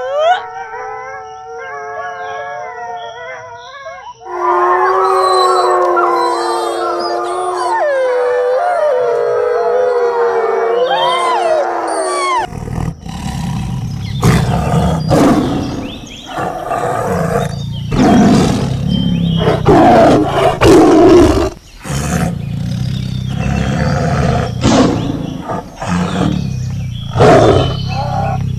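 Wolves howling: a long howl at first, then about four seconds in several voices join in a chorus of rising and falling howls. About twelve seconds in it cuts to a tiger growling and roaring in repeated loud bouts.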